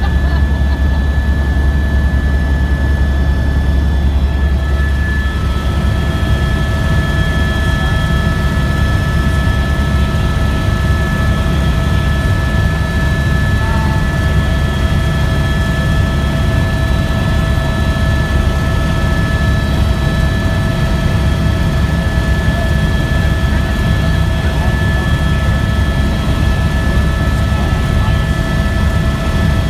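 Helicopter cabin noise in flight: a loud, steady low drone from the rotor and turbine engine, with several steady high-pitched whines over it, one of them coming in about five seconds in.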